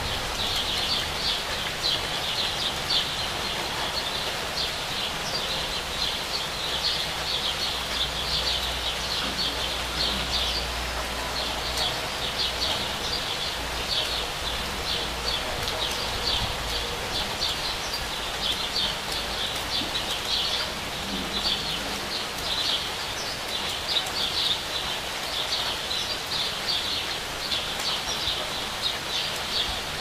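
Steady rain falling, with a bird chirping over it in quick, short, repeated notes, several a second. A low rumble sits underneath for about ten seconds in the first half.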